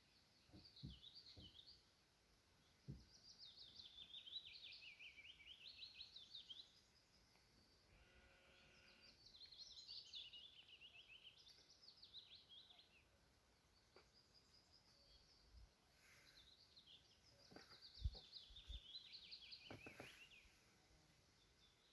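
A songbird singing faintly, repeating rapid trilled phrases of a few seconds each that wander down and up in pitch, with pauses between, over a few soft low thumps.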